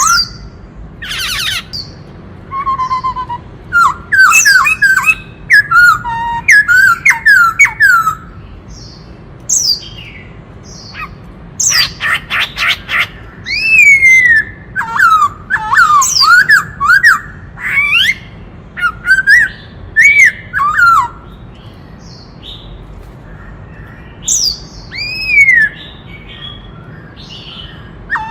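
White-cheeked laughingthrush singing: loud bursts of quick, sweeping whistled notes broken by short pauses, with harsh rasping calls about a second in and again near the middle.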